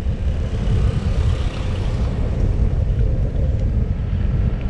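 Steady low rumble of wind buffeting the microphone of a camera mounted on a moving bicycle, mixed with road noise from the ride.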